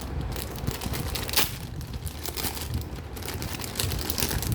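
Plastic packaging crinkling and rustling as jewellery is handled and unpacked, with one sharper crackle about a second and a half in.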